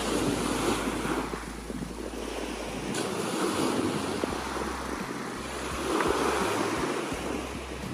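Ocean surf washing up a beach, swelling twice, with wind buffeting the microphone.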